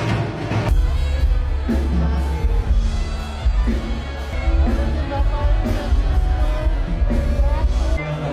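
Background music with a heavy, pulsing bass; a new section starts under a second in.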